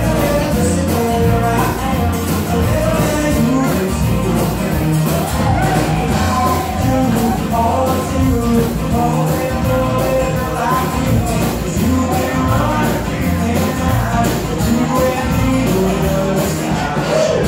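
Live band playing with a steady beat: a singer's voice over keyboard and band.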